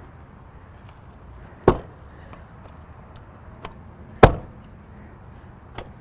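Two sharp thumps of a motorhome's exterior storage-bay doors being handled, one about a second and a half in and a louder one about four seconds in, with a few light clicks of the latches.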